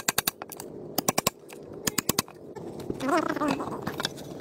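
Quick runs of sharp knocks, about five or six a second, from a hand tool striking a wooden plank as it is shaped. A short wavering call sounds about three seconds in.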